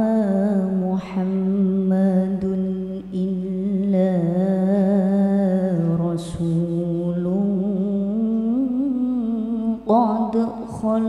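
A woman reciting the Qur'an in the melodic tilawah style, amplified over a sound system. She holds long, ornamented notes in a few long phrases, and the melody climbs higher near the end.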